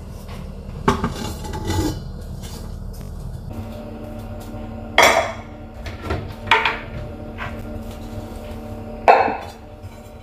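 Stone-coated cooking pots and lids being handled and stacked: several separate clanks and knocks, the loudest about five seconds in with a short ring.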